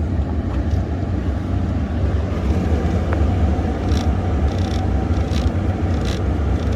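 Ford F-150 pickup running steadily, a continuous low rumble, with a few faint clicks in the second half.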